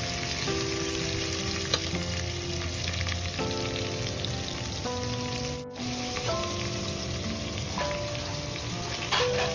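Diced vegetables sizzling steadily in hot oil and ghee in a pot as they fry and are stirred with a spatula, with background music playing. The sound breaks off briefly just past the middle.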